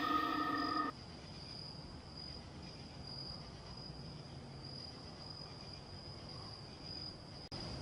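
Crickets chirping in a steady, pulsing high-pitched night chorus. In the first second a loud droning hum with several pitches, like a passing engine, cuts off abruptly.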